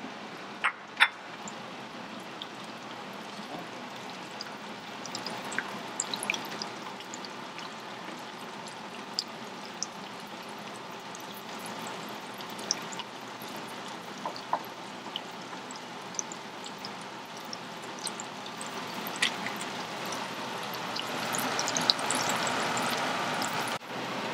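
Onions frying in oil in a pot on a gas stove: a steady sizzle scattered with small crackles and spits, growing louder near the end. Two sharp knocks come about a second in.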